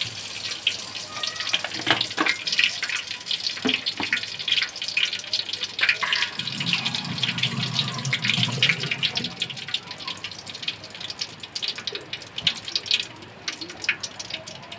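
Whole cumin seeds sizzling and crackling in hot oil, a dense run of small pops over a steady hiss: the seeds being tempered for the base of the curry.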